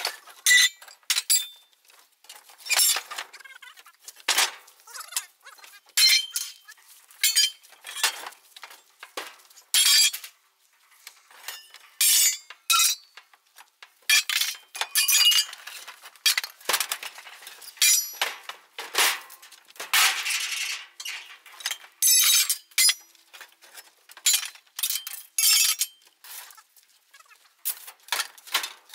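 Heavy scrap iron (crawler-tractor track plates, sprocket wheels and bars) thrown from a truck bed onto a pile, clanging and clinking against other metal in a quick, irregular run of sharp impacts, one or two a second.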